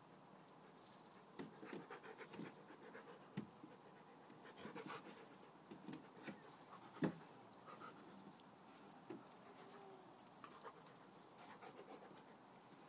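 Alaskan malamute and Northern Inuit puppy play-fighting: faint panting and scuffling, with one sharp knock about seven seconds in.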